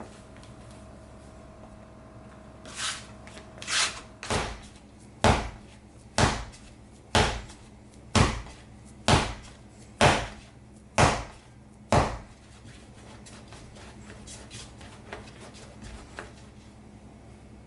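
Pumpkin bread dough being slapped down onto the work surface while kneading: about ten heavy knocks, roughly one a second, then softer handling of the dough.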